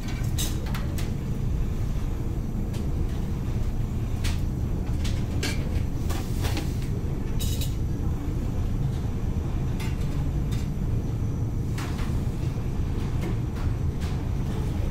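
Steady low rumble of a large ferry's engines heard inside the ship, with scattered light clinks and knocks of metal serving tongs against stainless chafing dishes.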